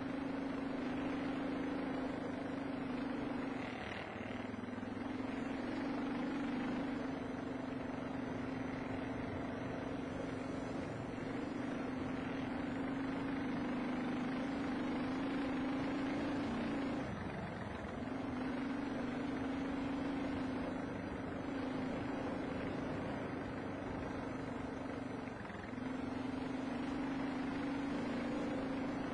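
Dual-sport motorcycle's single-cylinder engine running at a steady trail speed, heard from the rider's own bike, with brief drops in the engine note about 4, 17 and 25 seconds in.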